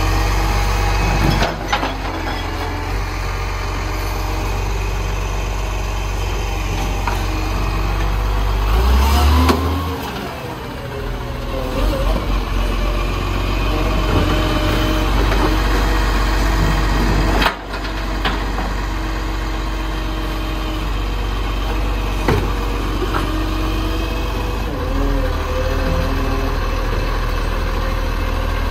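Garbage truck's diesel engine idling steadily, with a short loud surge about nine seconds in and a couple of sharp knocks, near the start and about eighteen seconds in.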